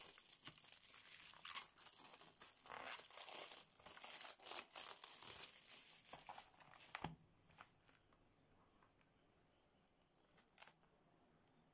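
Clear plastic shrink wrap being torn and crinkled as it is pulled off a box, a dense crackling that stops about seven and a half seconds in.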